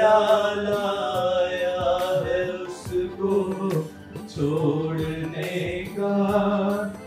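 A man singing a line of Hindi poetry in tarannum style, holding long notes that slide up and down in pitch.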